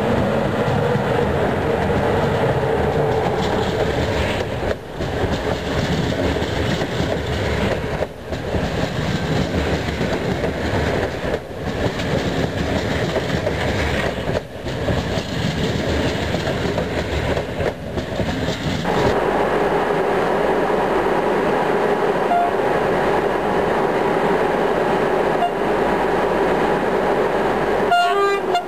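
Passenger train of double-deck coaches, hauled by a CFR Class 41 electric locomotive, rolling past close by with loud wheel-on-rail noise and clickety-clack. The sound dips briefly every three seconds or so as the coaches go by. About two-thirds of the way through it gives way abruptly to a steadier train rumble with a low hum.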